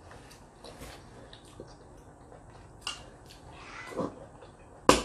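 Quiet table-side handling sounds as a clam is picked out of the hot pot by hand: a few light clicks and taps of shell, then one sharp click near the end.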